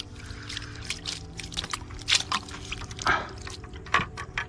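Water splashing and dripping in a scattered run of small, sharp splashes, with a few louder ones about two, three and four seconds in.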